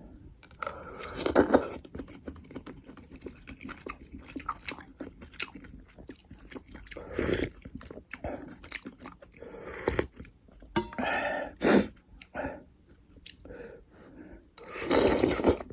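A person chewing and biting food close to the microphone: many small clicks, with a few louder bursts of eating noise about 1.5, 7, 11 and 15 seconds in.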